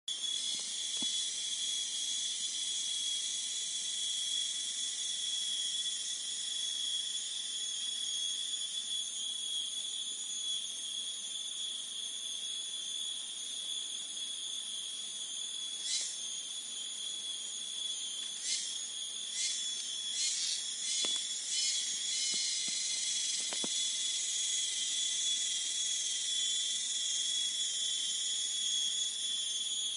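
Forest insect chorus: a steady, shrill, high-pitched trilling at several pitches at once. A few short sharp clicks stand out between about 16 and 22 seconds in.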